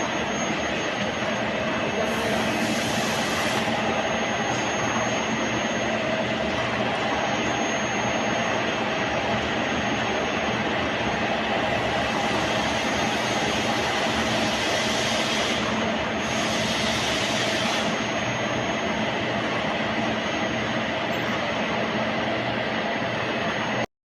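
ZNC540 EDM die-sinking machine running, a steady mechanical hum and hiss with several constant tones. A sharper high hiss comes in twice, about two seconds in and again about fifteen seconds in, each lasting a couple of seconds.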